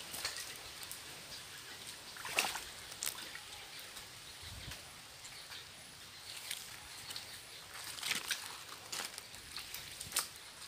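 Shallow muddy water sloshing and splashing as a plastic basin is dipped and dragged through it, in short irregular splashes, the loudest about two seconds in.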